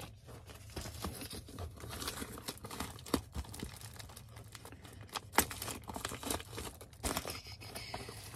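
Packaging crinkling and tearing while an item is handled, with irregular crackles and a couple of sharper snaps about three and five seconds in.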